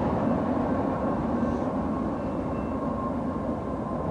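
Freight train running away into the distance, a steady rumble slowly fading, with a thin steady whine over it.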